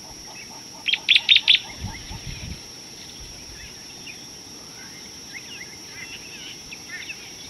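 Wild birds calling: a loud run of about five quick, sharp call notes about a second in, with scattered fainter chirps throughout.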